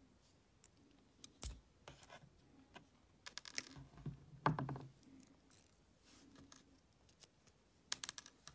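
Faint clicks and scratches of tweezers and fingers working the plastic flint tube of a disposable lighter as its spring is drawn out, with a louder cluster of clicks about halfway through and another near the end.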